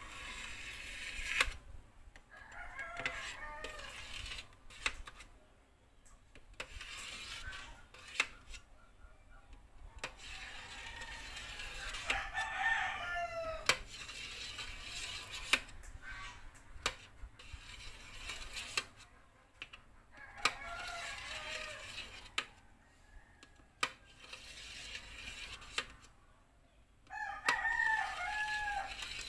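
A rooster crowing about four times, the longest a falling call near the middle. Short sharp clicks of a kitchen knife against a stainless steel tray as set agar jelly is sliced.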